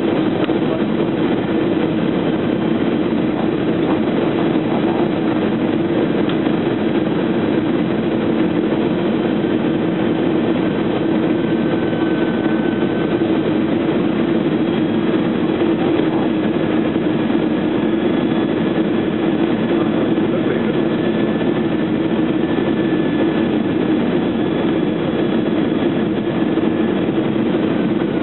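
Airbus A320 cabin noise on final approach: the steady rush of the jet engines and airflow heard from inside the cabin, with faint high engine whines that come and go and drift slightly in pitch.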